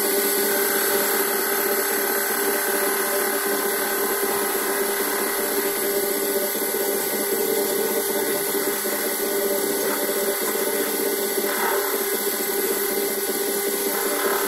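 Small benchtop metal lathe running steadily with its three-jaw chuck spinning: an even hum from the motor and gear drive.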